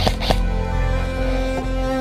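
Background music with sustained held notes, and two sharp clicks right at the start.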